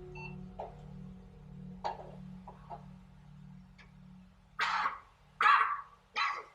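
A man coughing three times in quick succession, short harsh coughs about a second apart near the end, as he comes round. Before them a low pulsing hum fades away.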